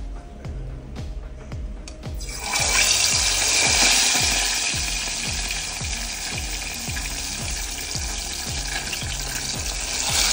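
Raw chicken wing going into a pot of hot cooking oil, which breaks into a loud, steady sizzle of deep-frying about two seconds in. Background music with a steady low beat plays underneath.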